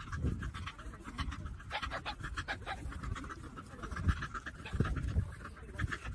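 A dog panting rapidly and irregularly, close up.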